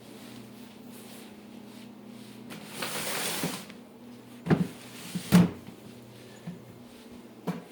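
A door or cupboard being handled: a brief rushing scrape about three seconds in, then two sharp knocks about a second apart, the second the loudest, and a lighter knock near the end.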